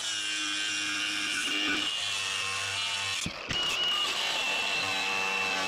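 Grinder running steadily while grinding back metal on the car's steering crossmember to clear room for the steering rack, with a high steady whine. It breaks off briefly about three seconds in, then resumes.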